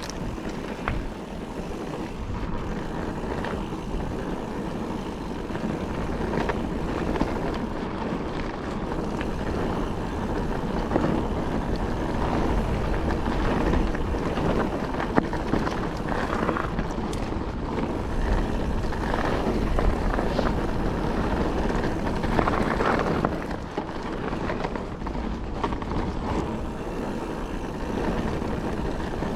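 Mountain bike riding a dry, loose trail: a steady rumble of tyres on loose ground and wind buffeting the camera microphone, broken by frequent short rattles and knocks from the bike.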